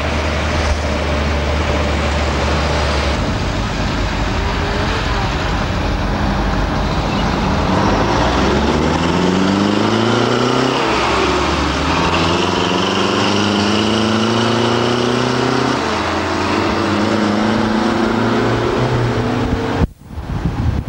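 Steady road noise heard from inside a moving car in traffic. From about the middle, an engine rises in pitch as it speeds up, drops once and climbs again. The sound cuts out for an instant near the end.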